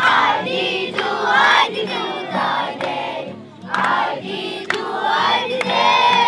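A group of children singing a song together, loudly, many voices at once.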